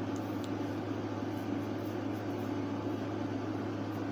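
Steady low hum with a faint hiss: background room noise.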